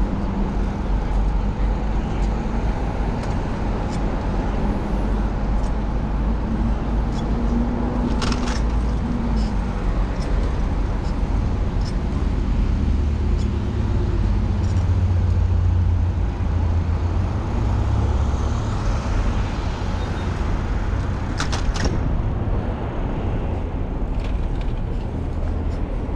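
Steady city road-traffic noise with a heavy low rumble, heard from a moving bicycle. Two brief sharp clicks stand out, one about eight seconds in and one about twenty-one seconds in.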